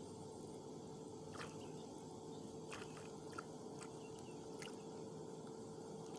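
Light rain falling on and around the water: a faint steady hiss with a few scattered sharp ticks of drops landing close by.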